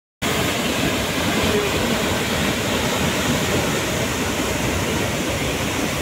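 Waterfall plunging onto rocks into its pool: a loud, steady rush of falling water that starts a moment in.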